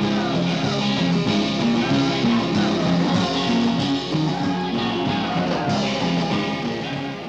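Live 1960s beat-group rock and roll: electric guitars, drum kit and tambourine, with voices singing. The music fades down near the end.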